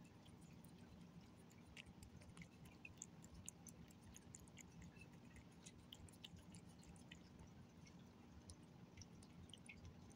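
Faint, irregular small wet clicks and smacks of a cat licking and chewing wet tuna food off a plate, over a low steady hum.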